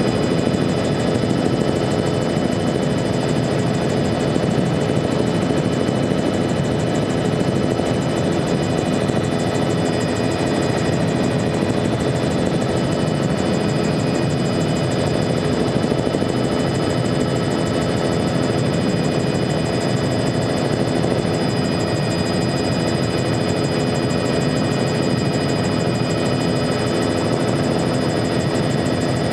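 Helicopter engine and rotor noise heard from on board in steady forward flight: a constant loud drone with several steady high-pitched whines over it.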